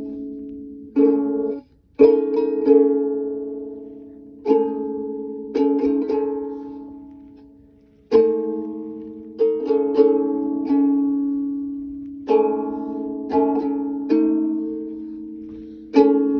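Chords strummed on a plucked string instrument, each struck sharply and left to ring and fade, sometimes with quick repeated strokes.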